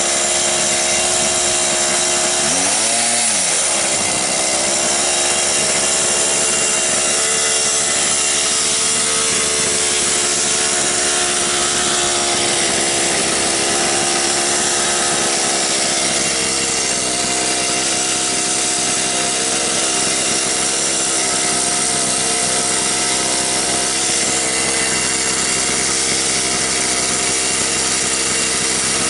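Small gas engine of a home-built quarter-scale RC car running hard and revving up and down, with a sharp drop and recovery in pitch about three seconds in.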